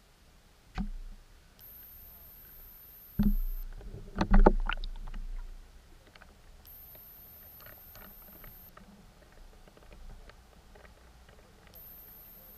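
Sharp knocks and clicks heard underwater through the camera: one knock about a second in, then a quick cluster of clicks and thuds a couple of seconds later, the loudest part of the clip.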